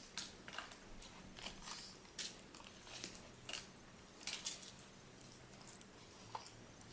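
Rottweiler chewing a crisp seaweed snack: faint, irregular crunching clicks, thinning out toward the end.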